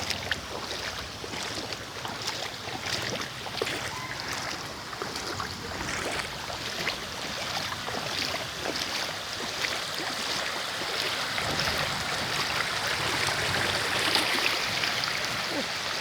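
Floodwater spilling over a speed bump like a little waterfall: a steady rush of running water with constant small splashes, growing a little louder in the second half.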